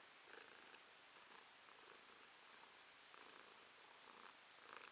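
A domestic cat purring, faint and steady, swelling in short pulses now and then.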